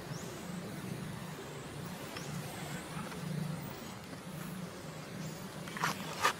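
A steady low motor hum in the background, with two short sharp crackles close together near the end.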